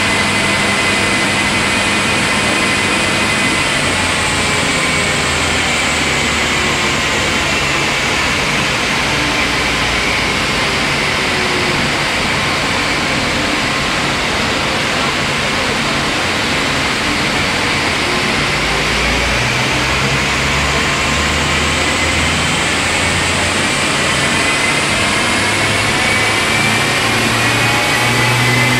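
Audi A4 TDI diesel running on a rolling-road dynamometer, a loud steady mechanical rush with a whine that slowly drops in pitch over the first ten seconds, then climbs again toward the end.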